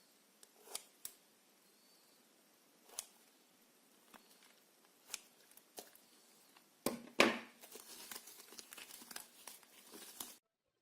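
Slime being handled close up: a few scattered sticky clicks and pops, then a loud crackle about seven seconds in and a run of dense crinkly crackling that cuts off abruptly near the end.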